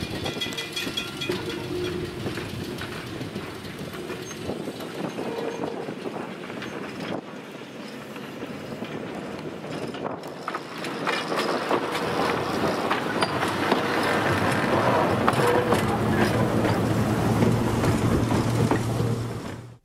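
Electric trolley car running on track, with steady wheel-on-rail noise. About halfway through the sound changes and grows louder, and a steady low hum runs under it. It cuts off suddenly at the end.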